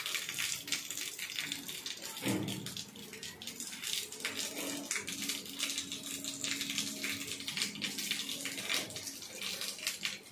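Leafy vine stems and leaves rustling, crackling and snapping as they are pulled and picked by hand, a dense run of small crackles over a faint steady hum.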